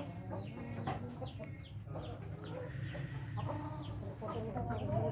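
Aseel chickens clucking, mixed with many short, high chirps.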